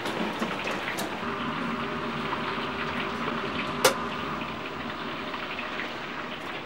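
Restaurant kitchen background noise: a steady rushing sound, with a sharp click about a second in and a louder one just before four seconds.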